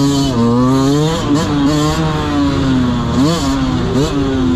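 Dirt bike engine under way, its pitch rising and falling as the throttle is opened and closed, with a couple of quick sharp blips near the end.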